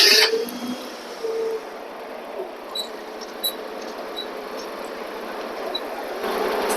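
Forklift engine running steadily just after starting, with a few faint ticks and squeaks, and a steady whine that grows louder near the end as the steering turns the wheels.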